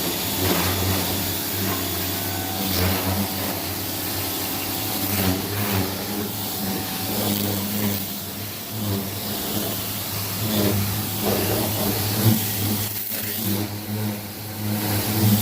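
Greenworks 2000 psi electric pressure washer running: a steady motor-and-pump hum under the constant hiss of the water spray through the soap nozzle.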